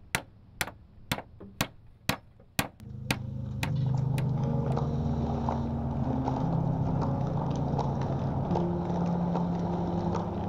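A claw hammer driving a nail into a wooden fence rail: about six sharp blows, two a second. About three seconds in the hammering stops and a louder low drone of held notes that shift in pitch takes over.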